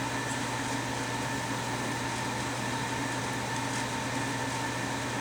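Steady machine hum with background hiss, holding a few constant tones and no other event.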